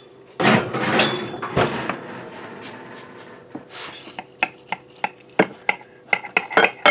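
Kitchen knife cutting chili cheese dogs in a glass baking dish: scraping in the first couple of seconds, then a run of sharp clicks and taps as the blade hits the glass dish.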